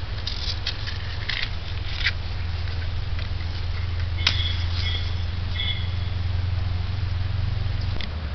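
Scattered clicks and rustles of kindling being lit in the firebox of an Iwasaki charcoal kiln, with a sharp click about halfway followed by a few short high bird chirps, over a steady low hum.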